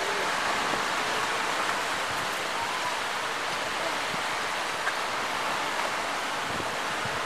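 Steady outdoor wash of sea surf and wind, an even hiss with no breaks.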